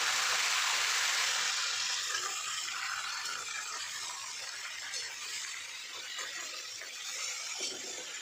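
Raw pumpkin cubes sizzling in hot oil in a metal kadhai over a low flame, the sizzle strong at first and dying down after a couple of seconds, while a metal spatula scrapes and clinks against the pan as they are stirred.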